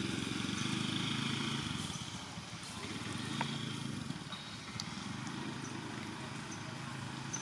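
An engine running steadily in the background, a low hum that eases off about two seconds in and carries on more faintly.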